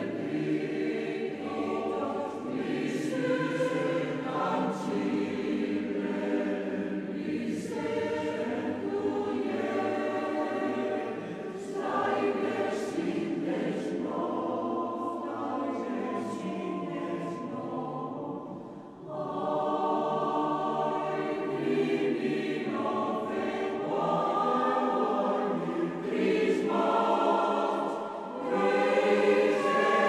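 Background music: a choir singing long held chords.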